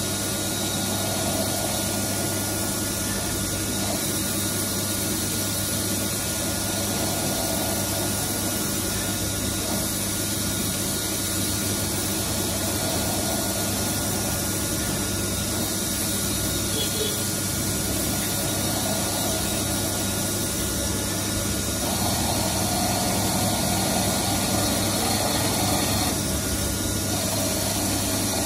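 CNC lathe turning steel: the spindle and cutting run steadily with a constant electrical hum and a hiss like coolant spray. The running note shifts and gets slightly louder about three quarters of the way through.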